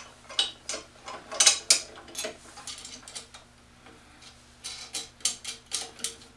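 Light clicks and ticks from a drill press table fence and stop block being fitted by hand with a nut and bolt. They come in small clusters, then a quicker, evenly spaced run of ticks near the end.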